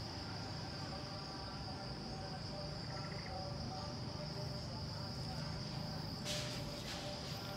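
A steady high-pitched drone of insects, with a brief rustle about six seconds in.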